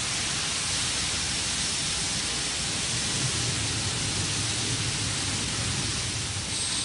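Steady, loud hiss of gas venting from Relativity Space's Terran 1 rocket as it stands fuelled on the launch pad.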